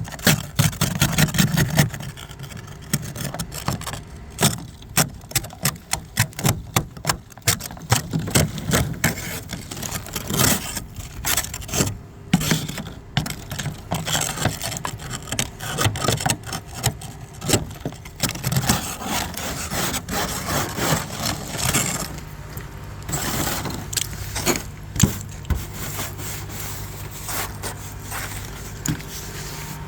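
Repeated rough scraping strokes against ice and crusted snow, coming irregularly and fast throughout. From about two-thirds of the way in, a steady low hum runs underneath.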